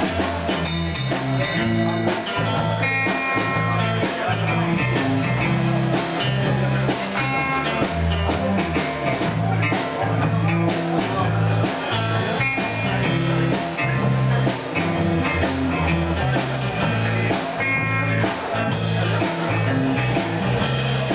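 Live band playing a rock song: electric guitar over bass and a steady beat.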